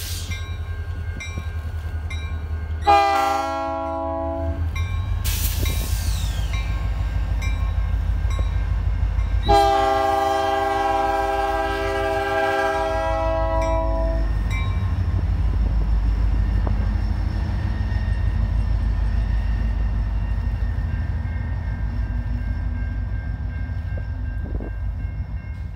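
Two diesel helper locomotives running light past, their engines giving a steady low rumble. A multi-chime air horn sounds a short blast about three seconds in and a long one from about ten to fourteen seconds, and the rumble carries on as the engines move away.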